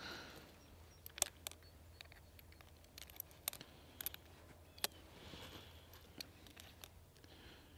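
Faint, scattered light clicks and taps from a revolver being handled, about a dozen short sharp sounds spread over several seconds, with no shot fired.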